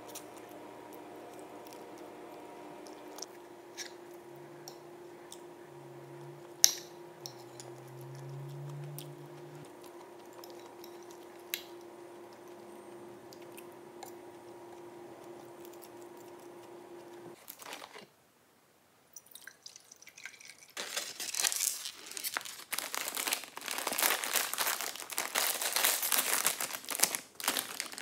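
A few light clicks of a fork against a plate, then, after a short silence, a snack chip bag crinkling loudly and continuously as it is opened and handled.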